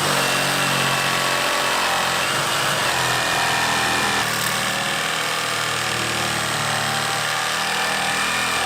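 Ryobi 18-volt brushless reciprocating saw motor and blade drive running steadily on a test run after its housing was cleaned of built-up sawdust.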